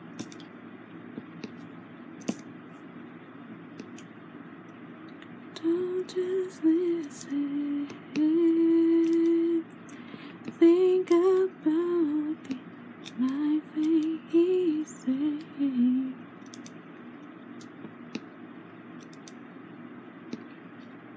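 A woman's voice humming a slow, church-like tune from about five seconds in until about sixteen seconds, with one long held note near the middle. Scattered light clicks of a diamond-painting drill pen picking resin drills from a plastic tray and pressing them onto the canvas.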